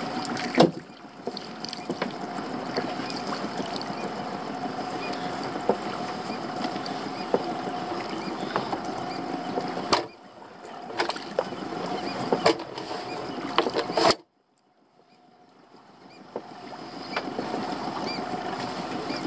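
Small boat's outboard motor running steadily under way, with a constant hum and scattered knocks. The sound cuts out abruptly about two-thirds of the way through and fades back in a couple of seconds later.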